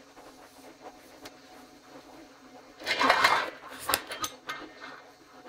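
Seasoning shaken from a spice canister into a metal measuring spoon. A short gritty rattle comes about three seconds in, followed by a few light clicks of the canister and spoon.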